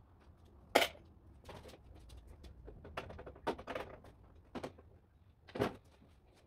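Photocopier's plastic covers and lid being handled and pulled at: a series of sharp plastic clicks and knocks, the loudest about a second in.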